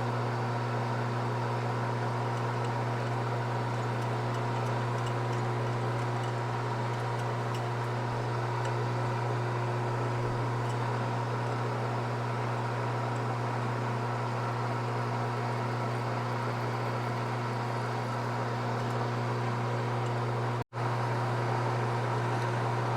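Machine tool running steadily with an even hum while an 8 mm bit drills through a steel sleeve; the sound cuts out for an instant near the end.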